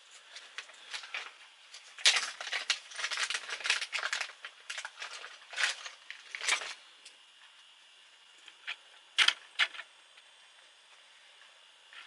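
Small plastic parts clicking and rattling as they are handled: a thread spool and spool cap being picked out and fitted onto a sewing machine's horizontal spool pin. A quick run of clicks for several seconds, then a few single clicks.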